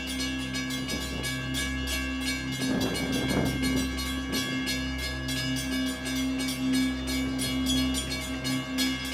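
Background music with a fast, steady beat over sustained chords, its low notes changing every few seconds.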